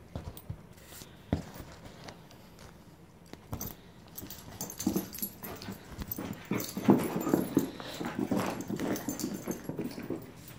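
Two dogs play-fighting, growling in quick irregular bursts. The growls are sparse at first and become louder and busier about halfway through.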